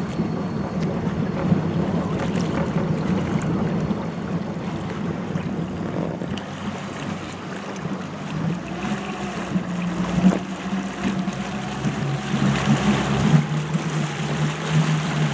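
Motorboat engine running at low speed under a wash of water and wind noise; the engine hum grows stronger in the last few seconds as the boat begins towing the tube.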